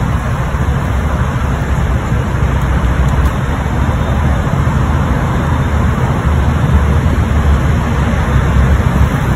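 Steady road-traffic noise from idling engines in stopped traffic: an even low engine rumble with a hiss of traffic above it. There are no distinct events.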